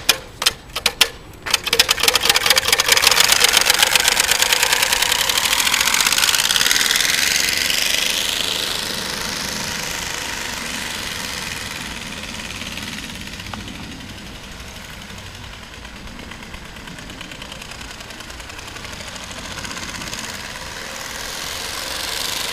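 Homemade engine-noise maker of PET bottle plastic on a chopper bicycle, clattering in a rapid run of clicks like a small engine. A few single clicks come first, then the clicks quicken into a steady stream that fades and grows louder again near the end.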